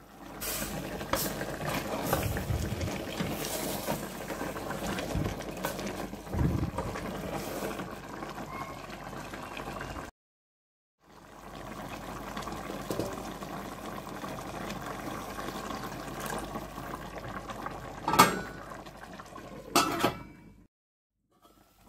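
Chicken simmering in broth in a stainless-steel pot, a steady bubbling hiss that breaks off for about a second halfway through. Near the end, two sharp metallic clinks as the steel lid is set back on the pot.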